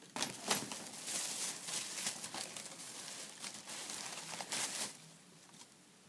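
Thin plastic carrier bag rustling and crinkling in bursts as hands rummage through it, dying away about five seconds in.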